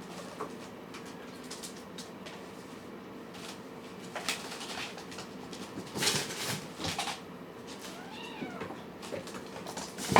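A cat meows once, a short call that rises and falls in pitch, about eight seconds in. Before it come a few sharp clicks and knocks, and a faint steady hum runs underneath.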